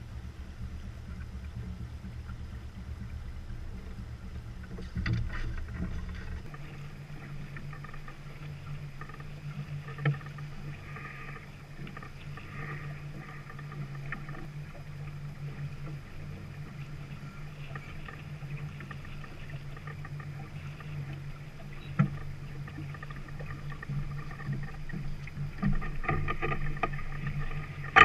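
Peterson 34 sailing yacht under way: water rushing along the hull with a steady low hum. There are two sharp knocks, about ten seconds in and again past twenty seconds, and the rush of water grows louder near the end.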